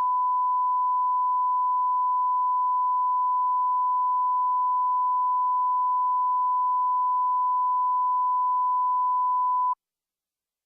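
Electronic test tone: one pure, unwavering beep at a single pitch, the standard 1 kHz line-up tone put at the head of a broadcast tape. It holds steady for almost ten seconds, then cuts off sharply.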